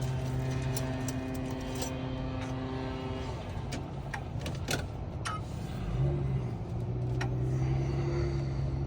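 Key-cutting machine cutting a test key: its motor runs with a steady hum, stops about a third of the way in, a few sharp clicks follow, and the motor starts again about two-thirds of the way in.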